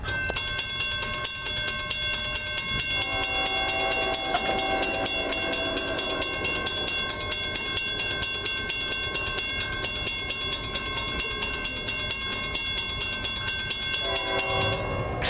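Grade-crossing warning bell ringing in rapid, even strokes as the crossing signals flash. A train's air horn, the lead locomotive's Nathan K5HL five-chime horn, sounds about three seconds in, fading out a few seconds later, and again briefly near the end as the freight approaches the crossing.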